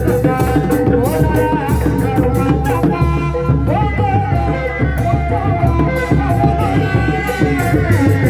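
Live Sundanese reak ensemble music for a kuda lumping performance. A sustained melody line slides between notes over a regular low drum beat and busy rattling, clicking percussion.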